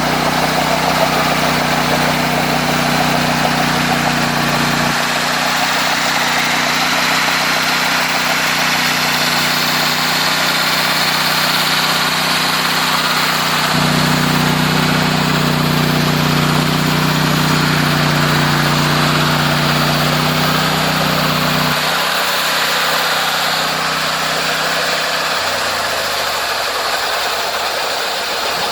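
Homemade sawmill running: a steady engine drone with a loud hiss over it. The drone's pitch steps down about five seconds in, back up around fourteen seconds, then down again and sliding lower near the end as it begins to slow.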